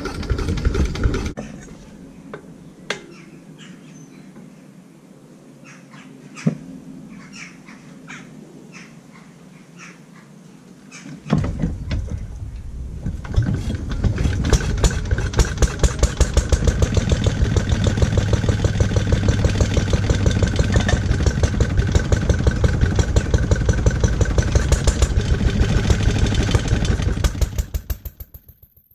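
Restored Lister D single-cylinder petrol stationary engine, its first runs after more than 20 years idle. It is running and cuts out about a second in. After about ten seconds of scattered clicks it picks up again about eleven seconds in and settles into a steady, even, fast beat. Near the end it is shut down and its beats slow as it coasts to a stop.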